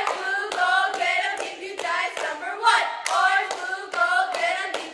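A small group of cheerleaders chanting a cheer in unison, with sharp hand claps keeping the beat between the words.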